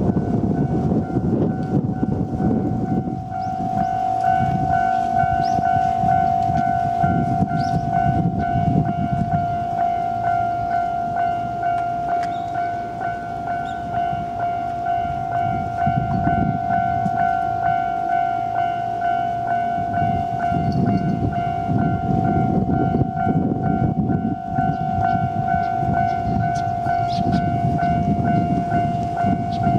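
Japanese level-crossing warning bell sounding a steady high tone while a freight train rumbles across, the rumble rising and easing several times.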